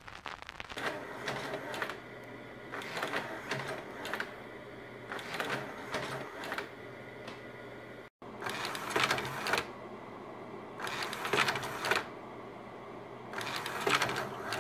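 Hanimex Rondette 1800 vertical carousel slide projector running with a steady fan hum, its slide-change mechanism clattering about every two to three seconds, each change lasting about a second.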